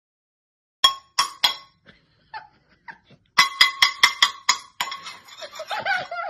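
Sharp metallic clinks, each ringing briefly: three spaced strikes about a second in, then a quick run of about seven. A wavering, whine-like tone follows near the end.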